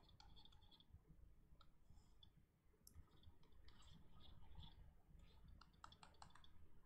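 Faint, scattered clicks and light scratches of a stylus on a pen tablet during handwriting.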